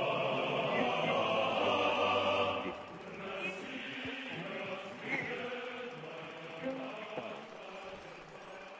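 Background music with sustained, choir-like chanting and held tones. It drops in level a little under three seconds in and fades out near the end.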